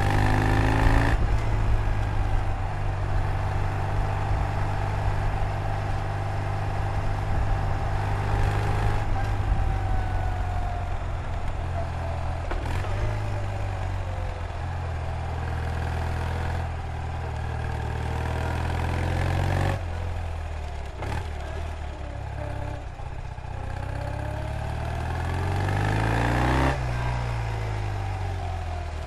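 1970 BMW R75/5's air-cooled flat-twin engine pulling a moving motorcycle, its pitch climbing and then dropping back at gear changes about four times, with wind rush on the microphone. Near the end the engine note falls away as the bike slows.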